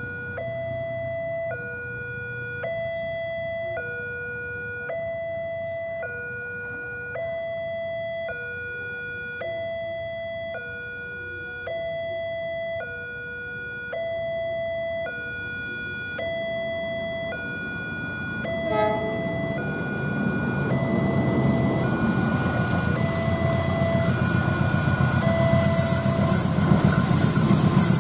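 Railway level-crossing warning alarm sounding a steady two-tone signal, alternating high and low about once a second. From about two-thirds of the way in, the rumble of an approaching diesel-hauled passenger train rises under it and grows loud, while the alarm carries on more faintly.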